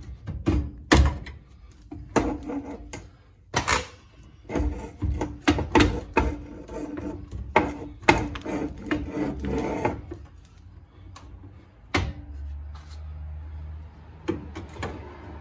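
Metal knocks and clanks as a pry bar works the freed front spindle and brake drum assembly out of a 1949 Ford's front suspension, many sharp hits through the first ten seconds. A last sharp knock about twelve seconds in is followed by a low steady hum.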